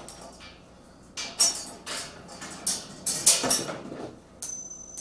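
Light metallic clinks and taps of steel washers, a nut and a bolt being handled and fitted by hand on a steel carrier frame, several short separate clicks rather than a steady sound.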